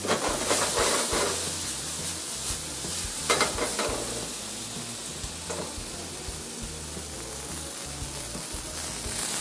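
Rib eye steak searing on a hot flat-top griddle, sizzling steadily. It is louder in the first second and again briefly a little over three seconds in.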